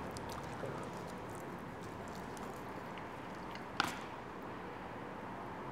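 Quiet, small eating noises as food is taken and chewed, over a steady background hiss, with one sharp click a little under four seconds in.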